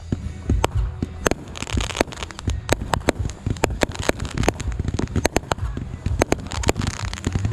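Fireworks going off: a rapid, irregular run of sharp bangs and pops, with a patch of crackling about two seconds in.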